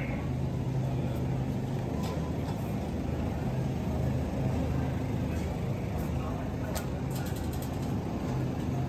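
Supermarket background noise: a steady low hum with faint distant voices, and a short run of light clicks near the end.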